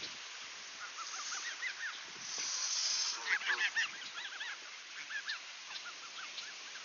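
Canada geese calling: short repeated calls throughout, with a burst of loud honks a little over three seconds in, just after a hiss about a second long.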